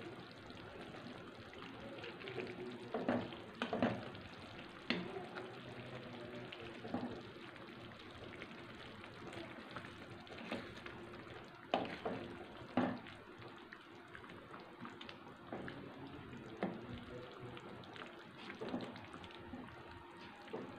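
Spatula stirring a thick chicken curry in a pan, with wet sloshing and sharp knocks of the spatula against the pan at irregular moments, over a faint steady simmer.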